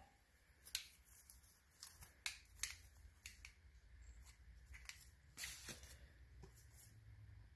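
Faint, scattered clicks and scrapes of hand work on an ATV front brake caliper, with one longer scrape about five and a half seconds in.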